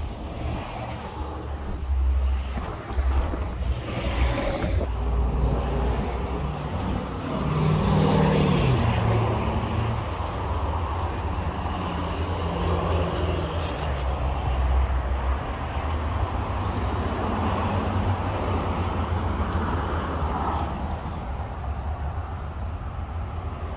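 Road traffic going by steadily, with one vehicle passing about eight seconds in, its engine note falling in pitch as it goes.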